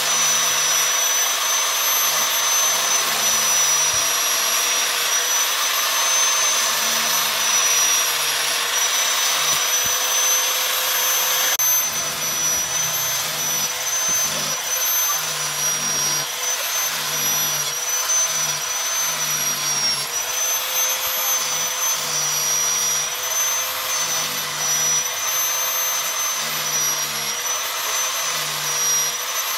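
Electric angle grinder with a thin cutting disc running at a high steady whine, its pitch dipping slightly now and then, while cutting crosshatch grooves into a knife handle.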